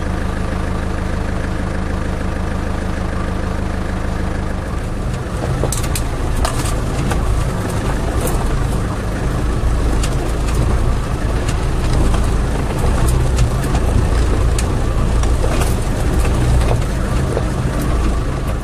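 Land Rover Defender engine idling steadily, heard from inside the cab. From about five seconds in, the sound turns to a rougher low rumble with scattered clicks and knocks.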